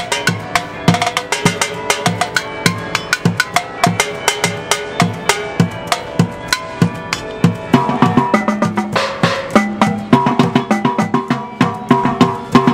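Percussion ensemble playing a busy, even rhythm on junk-percussion instruments such as a metal can struck like a drum and a rack of white pipes. Pitched, held notes join the hits about eight seconds in.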